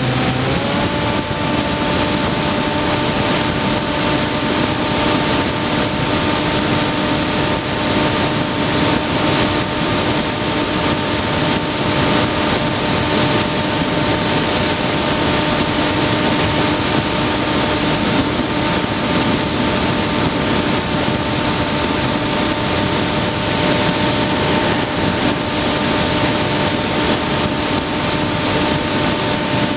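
Skywalker RC plane's motor and propeller running at a steady pitch, heard from the onboard camera with heavy wind rush from the airflow. The pitch rises back to its level within the first second, then holds.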